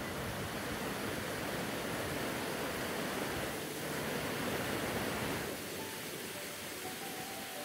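Fast-flowing river churning through white-water rapids: a steady rushing roar of water. Faint music comes in near the end.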